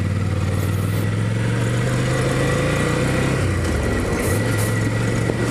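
Ducati Scrambler Icon's air-cooled 803 cc L-twin engine running steadily under way. Its note dips briefly about three and a half seconds in, then picks up again.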